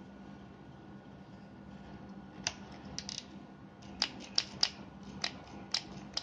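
Sharp plastic clicks and taps from the opened electric drill's housing and parts being handled, about ten in all, starting about halfway through.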